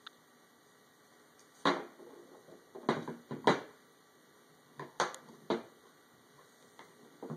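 Metal and plastic parts of a paintball marker knocking and clicking as they are handled and fitted together on a wooden table: a series of sharp knocks, the loudest about halfway through.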